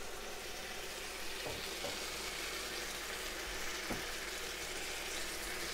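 Sardines, sliced red onion and sauce frying in a nonstick pan over lowered heat, giving a steady sizzle. A few light clicks of a spatula stirring in the pan come in the first few seconds.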